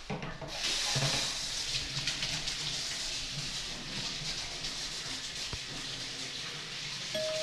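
Water running from a kitchen tap into the sink, a steady hiss that starts about half a second in. A held musical tone comes in near the end.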